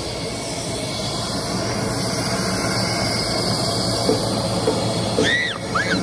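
Steady hissing rush of air from the blower of a playground ball-cannon tower, growing a little louder. A few faint knocks come in the second half, and a child's high squeals start near the end.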